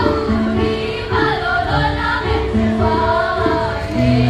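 Junior high school choir of girls and boys singing a song together.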